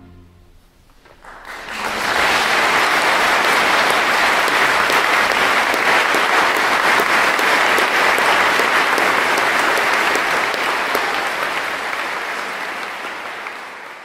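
Audience clapping at the end of a live orchestral performance. The applause builds up over the first two seconds, holds steady, then fades near the end.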